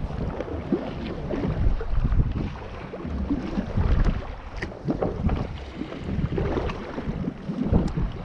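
Wind buffeting the microphone in uneven gusts, a low rumble that rises and falls, with a few faint clicks.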